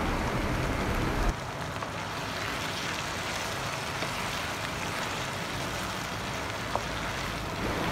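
Chicken strips in a tomato, ketchup and chilli sauce sizzling in a non-stick kadhai as they are stirred, a steady frying hiss. A low rumble underneath stops about a second in.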